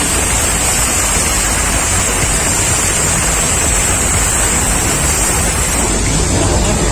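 Simulated earthquake effect on a studio tram ride: a loud, steady rumble with hiss, without separate crashes.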